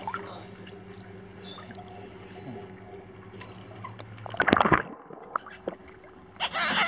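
Swimming-pool water splashing and sloshing as a dog swims, heard through a camera at the waterline that dips in and out of the water: muffled underwater sound with a steady low hum at first, a brief loud splash about four and a half seconds in, and heavier splashing near the end.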